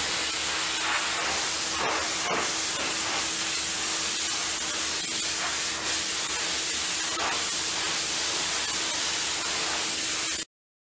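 High-pressure washer jet spraying onto steel surfaces, making a loud, steady hiss with a steady hum beneath it. The sound cuts off suddenly near the end.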